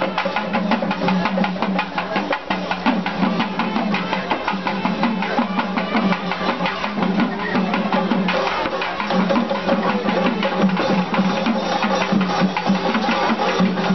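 Festival drum ensemble playing fast, steady stick strokes without a break, with a steady low droning tone underneath.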